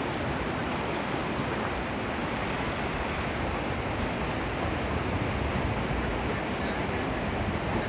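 Waterfall and river water rushing as a steady, unbroken noise.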